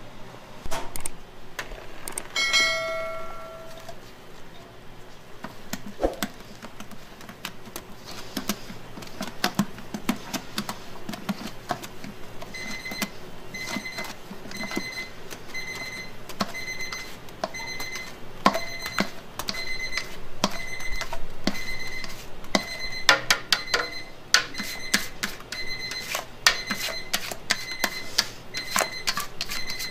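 Clicks and knocks of a utensil scraping and tapping a stainless-steel mixing bowl as thick cake batter is poured out. A short electronic tone sounds near the start, and from about halfway on an electronic beep repeats about one and a half times a second, like a kitchen timer or appliance alarm.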